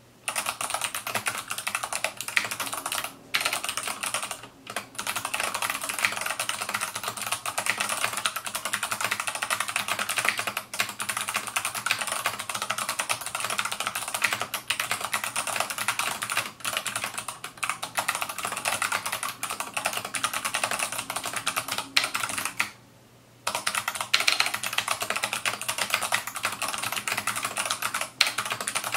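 Fast, continuous typing on a GMMK mechanical keyboard with clicky Kailh BOX Navy switches, Vortex PBT keycaps and a Kailh BOX Black switch under the spacebar, the board resting on a towel. The typing breaks off briefly about three and four and a half seconds in, and for under a second about 23 seconds in.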